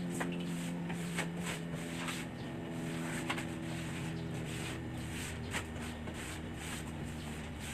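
Scattered clicks, knocks and scrapes of a small tabletop stove being scrubbed and handled during cleaning, over a steady low hum that weakens about five seconds in.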